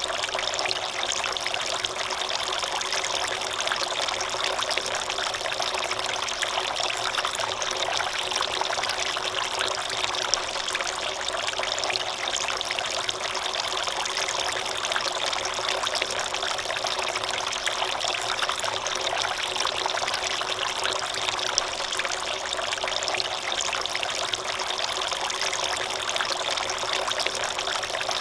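Water trickling and splashing steadily as it spills from an outdoor fiberglass-and-resin garden fountain's tiers, circulated by its submersible pump.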